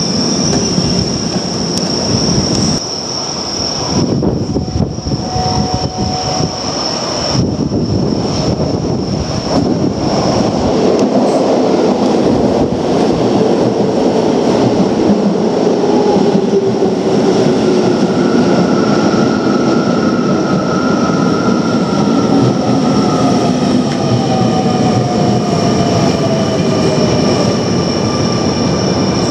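Keio Line electric train running on the rails with a steady rumble of wheel and track noise. In the second half, motor whines slide slowly down in pitch as the train slows.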